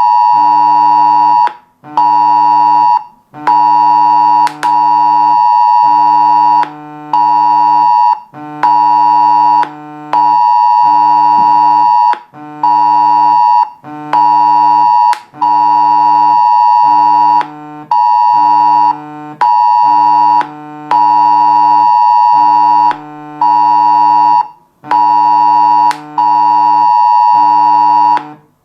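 A mobile phone's emergency alert tone sounding for a test warning: a loud, steady alarm tone repeating in longer and shorter pulses with brief gaps between them.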